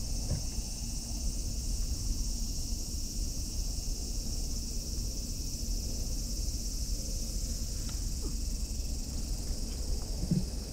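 Steady high-pitched drone of an insect chorus over a low rumble of wind on the microphone, with a few soft rustles near the end.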